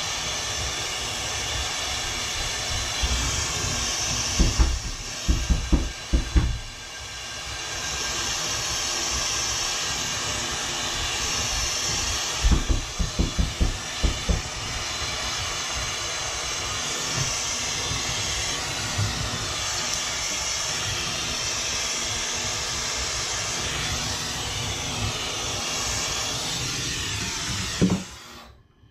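Hose-fed gas torch burning with a steady hiss while heating a 1/2-inch copper pipe joint to solder it. Two short clusters of knocks come about five and thirteen seconds in, and the torch hiss stops shortly before the end.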